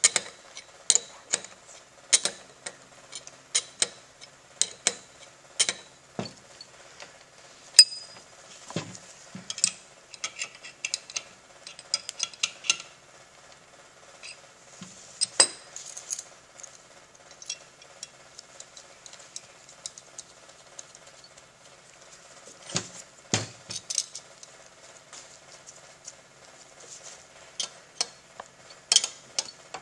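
A 9/16 steel wrench clicking and clinking against the stainless steel tube fittings of a pneumatic pump motor as they are tightened: irregular sharp metal taps, a few louder knocks about 23 seconds in and near the end.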